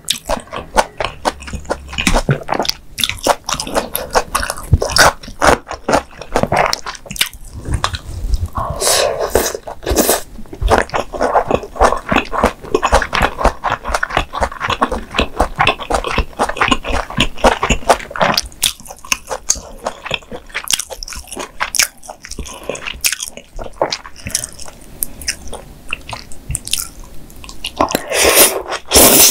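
Close-miked chewing and biting of mala xiang guo, a spicy stir-fry with wide glass noodles. Wet mouth sounds carry a steady stream of small sharp crunchy clicks.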